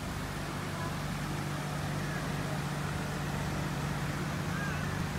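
Steady low machine hum, with a couple of faint high chirps about two seconds in and again near the end.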